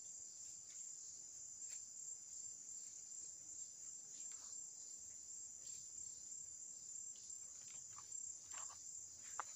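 Steady high-pitched insect chorus, with a few faint short rustles and clicks near the end.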